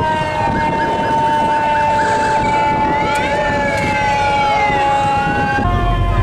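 Several emergency-vehicle sirens sounding together, their pitches sliding up and down over a steady held tone, with a fast yelp warble about a second in. Near the end the sound cuts to a louder low vehicle rumble.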